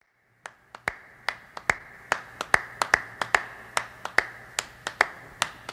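Finger snaps keeping a quick, syncopated beat as the intro of a recorded song, starting about half a second in.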